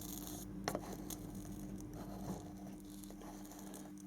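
Faint small clicks and taps from hand soldering work on a white metal model kit, the sharpest about a second in, over a steady low hum.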